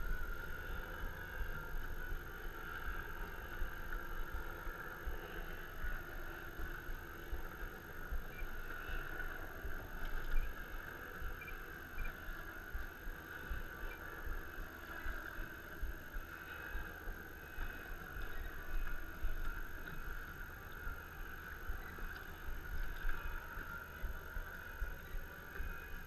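Steady background noise aboard a small boat: a constant low rumble with a steady hiss, and no distinct events.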